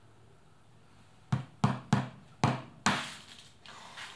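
Claw hammer driving bullet-head nails through plywood into hardwood strips: five sharp strikes in quick succession, starting about a second in.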